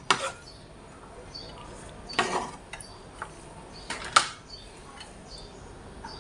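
Kitchen knife knocking and scraping on a wooden cutting board as minced garlic is cleared off it, with a few sharp clatters, the loudest about four seconds in as the knife is set down in a plastic basket.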